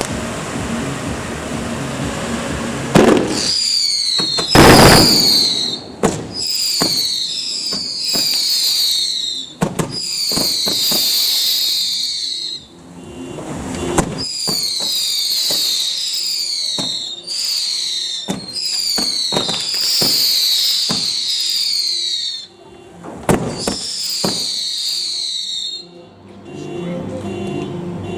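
Fireworks display: from about three seconds in, a rapid series of whistling shots, each a shrill, slightly falling whistle lasting a second or two, mixed with sharp cracking bangs. The loudest bang comes just before five seconds.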